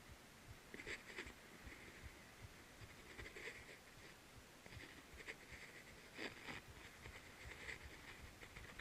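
Near silence: faint, irregular rustles and light clicks over a low, uneven rumble, from wind and harness movement muffled inside a sealed action-camera housing.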